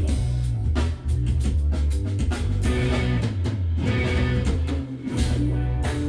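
Live band playing: guitars over a drum kit, with a steady low bass line and frequent drum hits.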